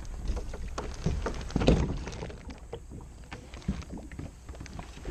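Kayak being paddled: irregular paddle splashes and knocks, loudest about a second and a half in.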